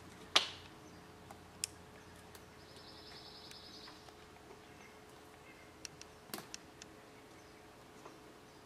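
Scattered sharp clicks and taps from a gray squirrel's claws and peanuts on an aluminium sliding-door track. The loudest is a single sharp click with a brief ring about half a second in, and a quick cluster of smaller taps comes about six seconds in.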